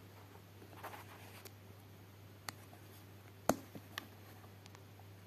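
Faint scraping, then a few sharp clicks over a steady low hum; the loudest click comes about three and a half seconds in.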